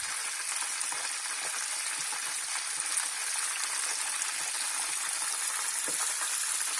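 Battered oysters deep-frying in hot oil: a steady sizzling hiss with fine crackles.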